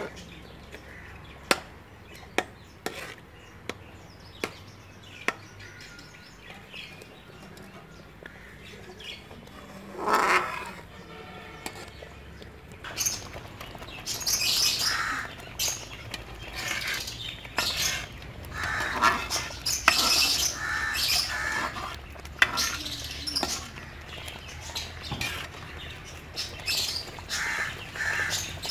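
A metal ladle tapping against an aluminium cooking pot of thick simmering ketchup: a few sharp clinks in the first few seconds. Birds chirping through the second half.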